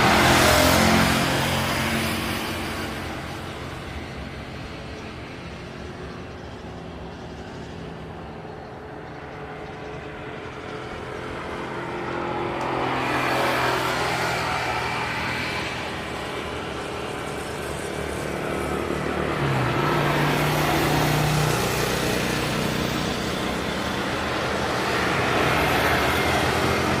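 Passing vehicle engines outdoors, swelling and fading several times: loudest at the start, then dying down before building up again three more times.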